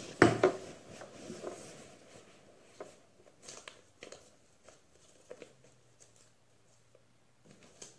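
Quilted horse stable rug being spread out and handled: a few loud rustles and bumps about half a second in as it is laid down, then faint fabric rustling and small scattered clicks from its straps.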